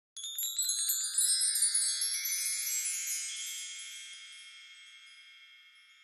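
Chime sound effect: a quick cascade of high, bright chime strikes, then the ringing fades away over the next few seconds.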